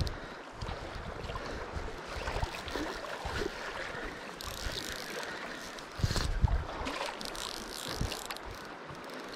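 Rushing creek water with wind buffeting the microphone in heavy gusts at the start and about six seconds in, under the ratcheting clicks of a fly reel as line is wound in.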